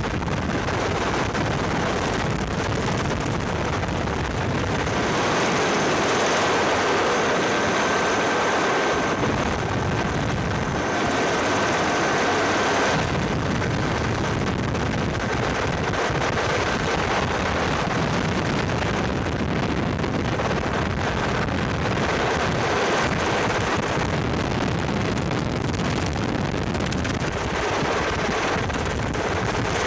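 Helicopter engine and rotor noise, heard from aboard, with wind on the microphone: a steady, loud drone with a thin high tone over it, swelling slightly for several seconds about five seconds in.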